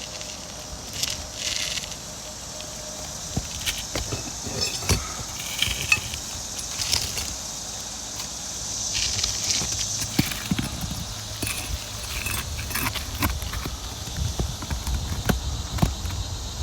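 Scattered clicks, taps and scraping of hand work on an asphalt shingle roof as a shingle is lifted to check a nail that has popped, over a steady high insect drone.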